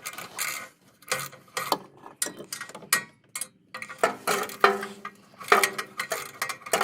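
Hand tools working on exhaust manifold bolts under a car: a wrench clicking and clanking against metal in irregular strokes, with a few brief metallic rings about two-thirds of the way through.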